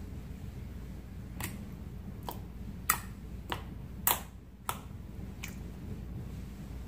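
Slime being stretched and pressed, giving off a string of about seven sharp wet clicks and pops, the loudest about three and four seconds in, over a steady low hum.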